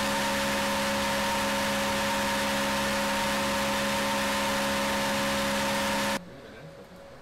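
BMW M3 engine running on a test bench at a steady speed under heavy load, its exhaust headers glowing red; a loud, even engine and exhaust noise with a few steady tones. It stops abruptly about six seconds in.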